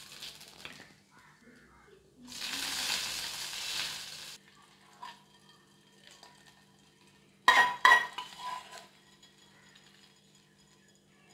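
Tempering of mustard seeds crackling and sizzling in hot oil in an aluminium kadai for about two seconds. A few seconds later a metal spoon clinks several times against the chutney bowl as the tempering is spooned on and stirred in.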